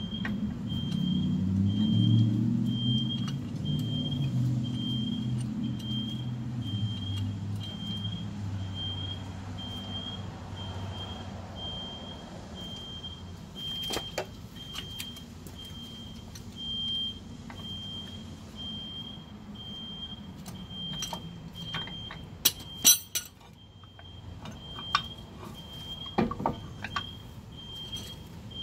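A vehicle engine drones, loudest in the first few seconds and fading out by about twelve seconds in. Under it, a high electronic beep repeats about twice a second throughout, and a few sharp metal clinks of hand tools come in the second half.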